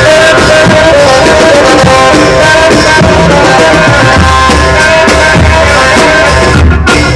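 Very loud amplified live band music: an electronic keyboard holding a sustained melody over drums and a pulsing bass line.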